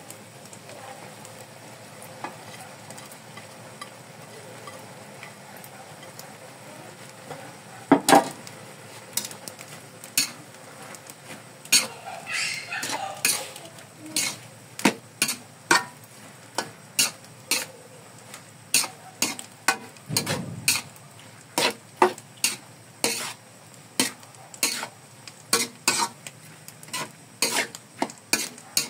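A metal spatula stirring and tossing noodles and shredded cabbage in a metal wok, scraping and clanking against the pan. For about the first eight seconds only a faint steady sizzle is heard; then the spatula strokes start and repeat about twice a second.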